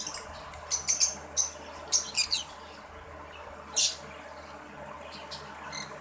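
Green-cheeked conures chirping: short, high-pitched chirps in quick clusters over the first two and a half seconds, one more at about four seconds, then quiet.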